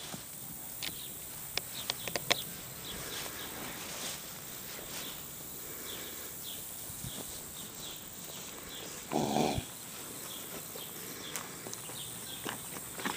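Rocky Mountain Horse moving over pasture ground, with a few sharp hoof knocks in the first two or three seconds. About nine seconds in comes a single short, loud call, the loudest sound in the stretch.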